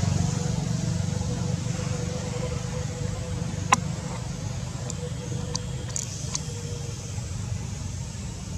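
A motor vehicle's engine running nearby, a steady low rumble that slowly fades. A single sharp click comes a little under four seconds in, and a few faint clicks follow.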